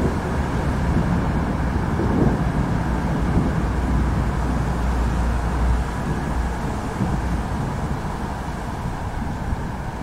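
Thunderstorm ambience: a deep, rolling rumble of thunder over a steady bed of noise, strongest in the middle and easing off over the last few seconds.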